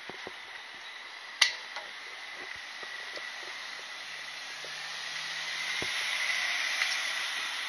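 Street traffic at an intersection, with a box truck driving past that swells louder in the second half. A single sharp click about a second and a half in.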